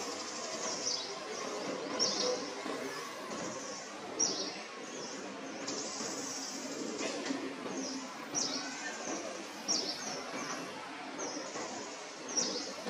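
Outdoor ambience with birds chirping: short, sharp chirps every second or two over a steady high hiss.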